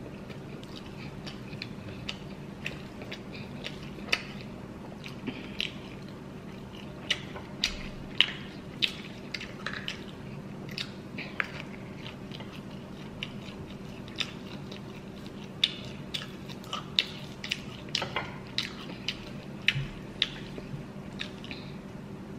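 Close-miked chewing of chicken wings: irregular wet mouth clicks, lip smacks and bites, over a faint steady hum.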